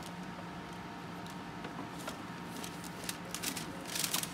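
Power XL air fryer oven running with a steady hum. A brief rustling noise comes near the end, from the tray or door being handled.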